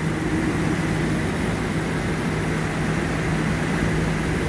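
Supercharged car engine idling steadily with a constant low hum, freshly rebuilt supercharger fitted; no knocking is heard, which the owner takes as the rebuild having cured it.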